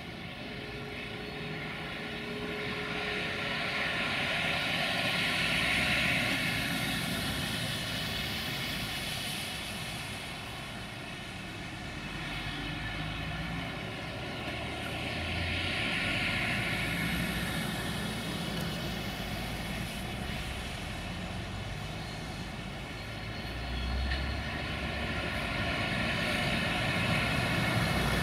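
LDH1250 diesel-hydraulic locomotive hauling a freight train, its engine running with a steady whine over a low rumble. The sound swells and fades a few times and grows louder near the end as the locomotive draws close.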